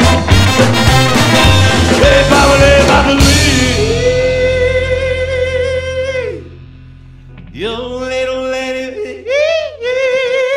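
Live rockabilly band playing, then breaking off about three seconds in. A singer then holds long, high notes, each ending in a wavering vibrato, over a fading low sustained note.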